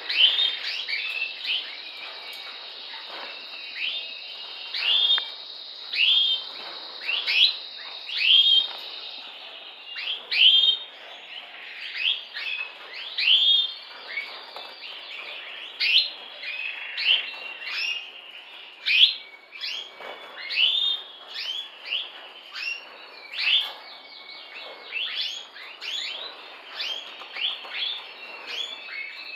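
Red mosaic canary chirping: a long string of short, sharp calls that sweep downward in pitch, one or two a second, over a steady high tone that stops about nine seconds in.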